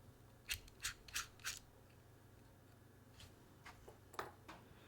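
Faint, small metallic clicks of hand tools and knife parts during disassembly: four sharp clicks in quick succession about a second in, then a few softer clicks near the end.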